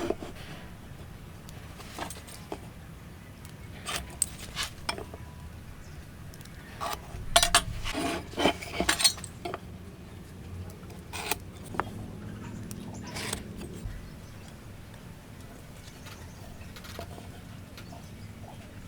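Scattered light clicks, knocks and clinks of hand tools and wood being handled at a workbench, busiest about halfway through, over a faint steady low hum.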